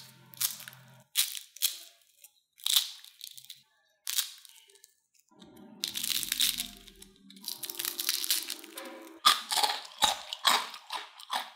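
Crispy fried potato and cornstarch snacks being snapped apart by hand: a run of sharp, separate crunches, then longer stretches of crackling from about halfway through.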